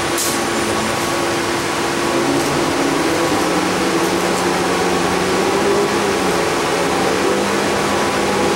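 City transit bus heard from inside the passenger cabin: a steady drone and hiss of engine, drivetrain and ventilation. An engine tone rises about three seconds in and eases back down near the end. A light click sounds right at the start.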